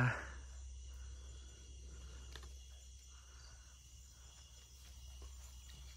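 Steady night chorus of crickets and other insects, with a few faint drips and rustles as a mesh crab trap is hauled up out of the water on its rope.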